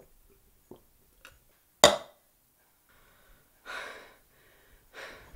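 A person gulping water from a plastic cup with a few faint swallowing ticks, then one short, sharp, loud sound about two seconds in. It is followed by two heavy out-breaths, from someone out of breath after a bike ride.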